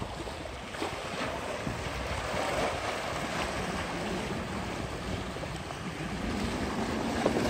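Small sea waves washing and splashing against the rocks at the water's edge, with wind buffeting the microphone.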